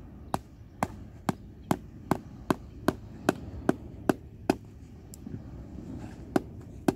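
Small mallet driving a metal tent peg into sand: about a dozen sharp, evenly paced blows, roughly two and a half a second, then a short pause and two more blows near the end.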